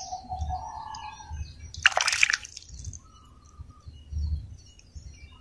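A hand sloshing and splashing in shallow muddy pond water while grabbing for small fish, with one loud splash about two seconds in. Birds chirp faintly in the background.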